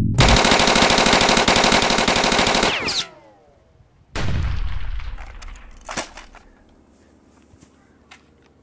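Rapid machine-gun fire for about three seconds, ending with a falling drop in pitch as it cuts out. About a second later comes a single loud blast that fades away over a second or so.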